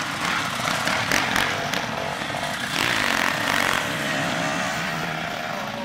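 Motocross bike engines running hard on the course, a dense, steady buzz.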